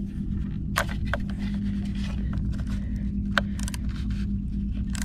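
Sharp metal clicks and light scraping from a hand driver turning out a Torx screw in the license-plate bracket, about a dozen scattered clicks. Under them runs a steady low hum.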